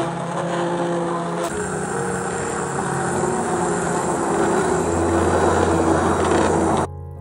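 Immersion blender running in pumpkin soup: a steady motor whine with the churning of the thick purée. It cuts off suddenly near the end.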